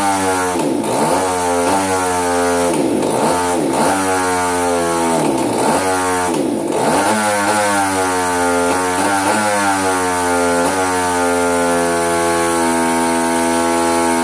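RCGF 30cc twin-cylinder two-stroke engine running with its speed repeatedly sagging and picking back up every second or two, then holding steadier near the end. The stumbling is the engine misfiring from a faulty ignition.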